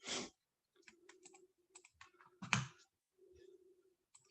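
Faint scattered light clicks and taps, with a short breathy puff at the start and another about two and a half seconds in.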